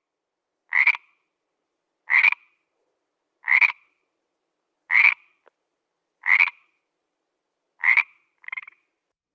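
A frog croaking: six short calls evenly spaced about a second and a half apart, then a fainter, shorter call right after the last one, with silence between calls.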